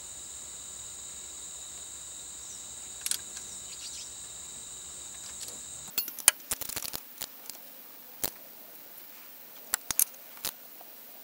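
Ratchet and socket clicking, with metal tools clinking, as alternator mounting bolts are tightened. The sharp clicks come in quick uneven bunches from about six seconds in. Before that there is a steady high-pitched drone with only a couple of clicks.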